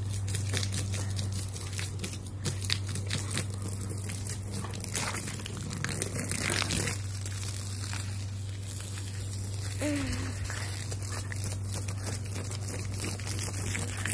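Water from a garden hose spattering and splashing on a wet wooden deck while a husky snaps and bites at the stream, a dense irregular crackle of small splashes and chomps. A steady low hum runs underneath.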